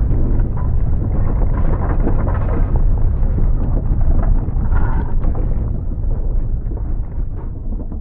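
Loud, deep rumbling with dense rattling and clattering, the shaking of an earthquake, fading away over the last couple of seconds.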